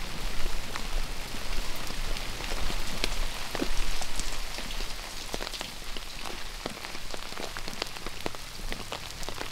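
Steady rain falling, an even hiss with frequent sharp taps of single drops landing close by.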